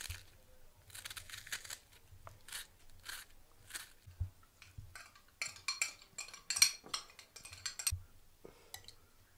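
Food-preparation handling sounds: chopped onion dropped into a plastic basin, then a metal spoon scraping and clinking inside a glass jar of red pepper paste, with a dense run of clinks about five and a half to seven seconds in.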